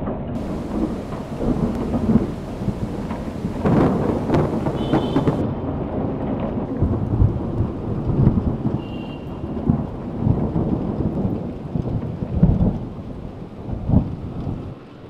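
Thunderstorm: a steady rush of rain with thunder rumbling and cracking several times, the loudest claps about two, four, twelve and fourteen seconds in.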